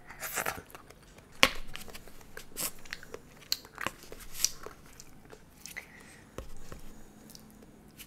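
Close-miked eating: biting, crunching and chewing in short irregular bursts with sharp clicks, the loudest click about a second and a half in.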